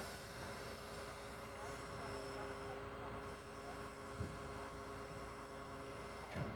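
Doosan excavator's diesel engine running steadily, with two short knocks, about four seconds in and near the end.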